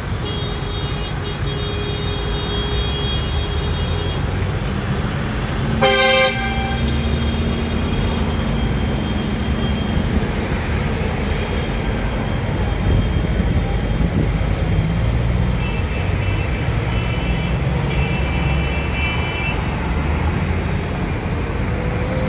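A column of farm tractors driving past, their diesel engines making a steady low rumble, with one loud horn blast about six seconds in and fainter high-pitched tones near the start and again in the second half.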